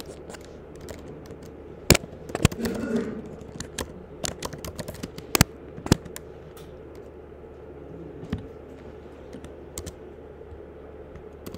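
Typing on a computer keyboard: irregular keystrokes, with a few sharper, louder key presses about two seconds in and again around five to six seconds in.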